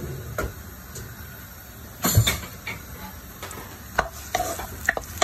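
Chopped onion, garlic and green chillies sizzling in a frying pan while being stirred, with a steady sizzle and scattered scrapes and knocks of the stirring utensil on the pan, the loudest about two seconds in.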